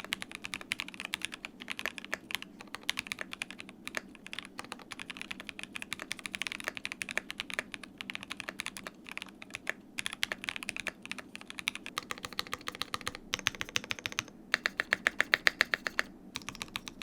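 Typing on a Qwertykeys QK60 60% gasket-mounted custom mechanical keyboard fitted with both plate foam and case foam, giving a dampened, foamy sound signature. Steady fast keystrokes, with a quicker even run of clicks about two-thirds of the way in.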